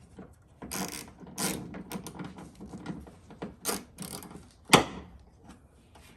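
Irregular clicking and rattling of engine-bay parts being handled and refitted by hand, with one sharp click a little under five seconds in.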